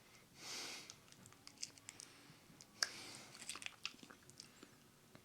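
A man chewing and biting into fried chicken wings, faint mouth clicks and smacks scattered throughout, the sharpest about three seconds in. A short soft hiss comes about half a second in.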